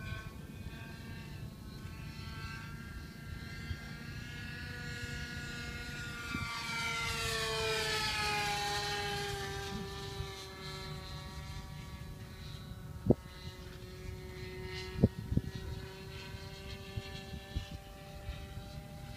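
Two-stroke OS .46 glow engine of a radio-controlled model airplane in flight, a steady buzzing note. It grows louder as the plane passes about eight seconds in, and its pitch falls as it goes by before holding steady again. A few sharp clicks come in the second half.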